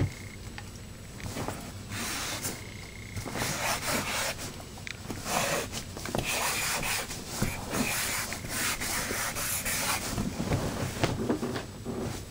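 Felt nib of an Oink Monster Mop squeeze marker rubbing across a whiteboard in a series of strokes. The marker is squeezed fairly hard to try to make drips, yet it gives barely any.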